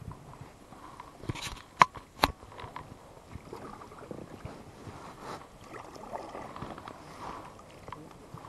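Three sharp knocks in quick succession, about half a second apart, then faint uneven rustling and handling noise.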